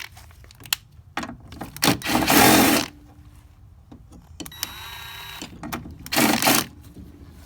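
Small power tool running in short bursts to unfasten the 10 mm bolts holding a sliding-door lower lock latch: a loud burst about two seconds in, a steadier whine near the middle, and another short burst near the end, with scattered clicks between.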